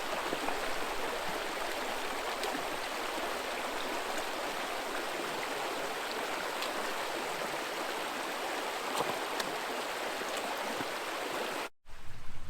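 Creek water rushing steadily over rocks at a shallow stream crossing. It cuts off abruptly near the end.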